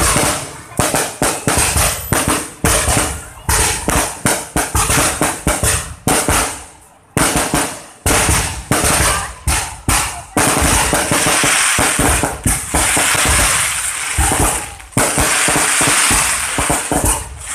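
Aerial firework shells launching and bursting overhead: a rapid run of sharp bangs, several a second, then about ten seconds in a dense, continuous crackling that carries on until just before the end.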